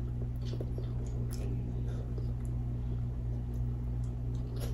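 Soft, wet mouth clicks and smacks every second or so as sauce is sucked off the fingers and chewed, over a steady low hum.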